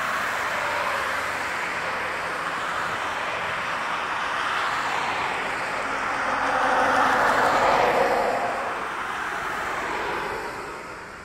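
Airbus A380 jet engines on approach: a steady, broad rushing whine that swells to its loudest about three-quarters of the way through, then fades away near the end.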